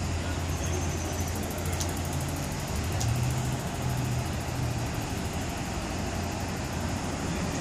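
A vehicle engine idling steadily: a low, even hum.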